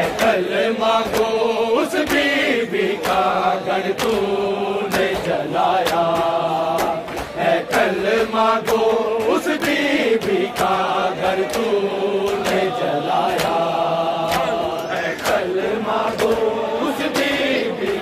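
A group of men chanting an Urdu noha, a mourning lament, in unison. Their chanting is accompanied by a steady beat of open-hand slaps on bare chests (matam).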